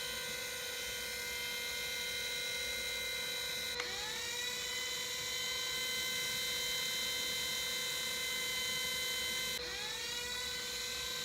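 Panasonic EY7441 14.4 V cordless drill running with a steady high whine. The trigger is briefly let off and the motor spins back up about four seconds in and again near the end.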